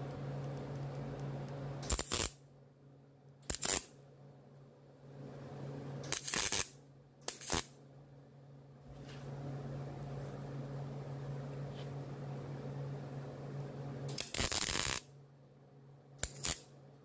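MIG welder laying short tack welds on the thin steel quarter panel: about six brief crackling bursts, each under a second, the longest about two-thirds of the way in, with pauses between them over a steady low hum. The short bursts keep the heat down so the edge of the sheet metal does not blow through.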